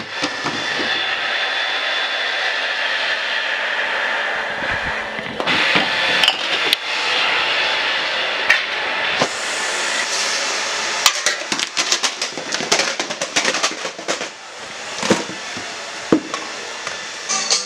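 Homemade Rube Goldberg machine running: a golf ball and a small pool ball rolling along their tracks and knocking into things, then a quick run of knocks and clatters as movie cases and books topple into one another like dominoes. A steady hiss fills about the first five seconds.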